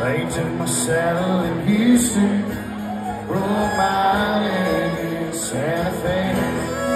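Live country band playing: strummed acoustic guitars with a fiddle, and a melody line that bends in pitch.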